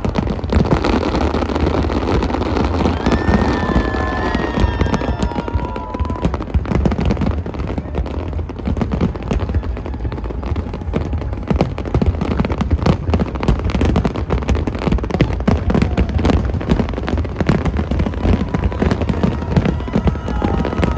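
Fireworks going off in a dense, continuous barrage of bangs and crackles, with a few short whistling tones in the first few seconds.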